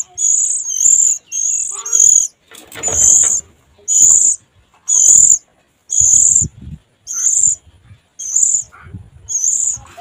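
Oriental magpie-robin nestlings calling from the nest: a high, thin call repeated about once a second, with some low rustling.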